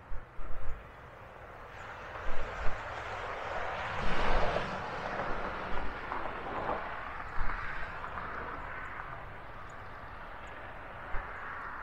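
A passing vehicle's rushing noise swelling to a peak about four seconds in, then fading to a lower steady rush, with several short low thumps.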